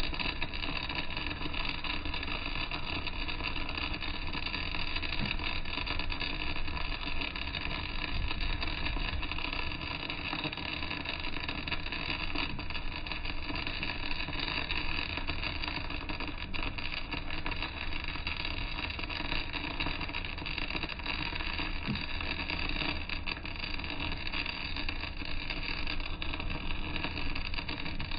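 Arc welding running continuously on a vertical-down (3G downhill) weld: a steady crackling frying of the arc, over a constant low hum.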